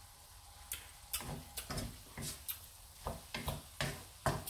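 Wooden spatula scraping and knocking against a frying pan as a thick chilli paste is stirred. The strokes start about a second in, roughly two a second and unevenly spaced.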